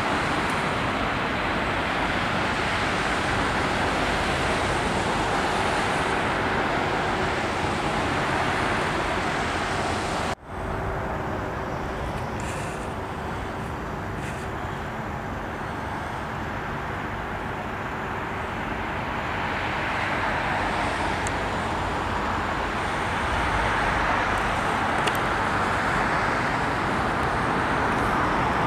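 Steady roar of airliner jet engines mixed with road traffic, dropping out for an instant about ten seconds in, then building again towards the end as another airliner comes in on approach.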